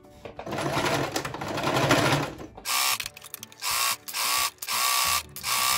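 Domestic electric sewing machine stitching a seam through fabric, first in one steady run of about two seconds, then in about five short bursts with pauses between.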